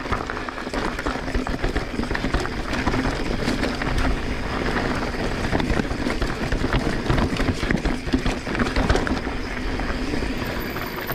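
Transition Sentinel full-suspension mountain bike being ridden over rough trail. The tyres roll over dirt and roots with a dense, irregular clatter of knocks and rattles from the bike.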